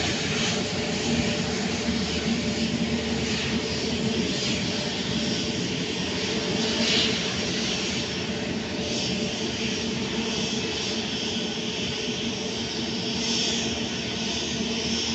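Airbus A350's Rolls-Royce Trent XWB turbofan engines running at taxi power as the airliner rolls slowly: a steady jet rush with a low hum held at one pitch.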